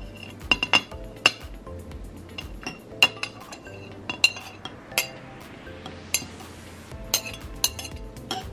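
Kitchen knife tapping and scraping against a ceramic plate and a glass mason jar, a string of sharp irregular clinks, as minced garlic is scraped into the jar.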